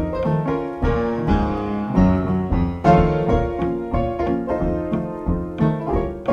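Background piano music: a steady stream of plucked-sounding keyboard notes and chords at an even pace.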